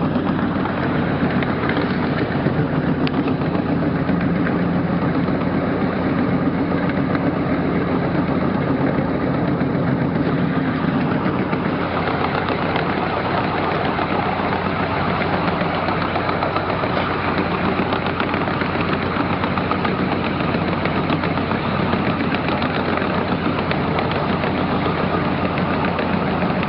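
Steady running drone and rumble of a 12-inch gauge miniature train under way, heard from a passenger car: a low engine-like hum under a continuous rattle of wheels on track.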